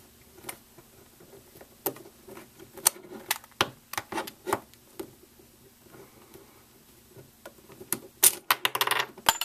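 Plastic pieces of a Meffert's Venus cube, a pillowed 3x3 puzzle, clicking and knocking as it is twisted and pried apart for disassembly: scattered sharp clicks, then a quick run of clicks near the end.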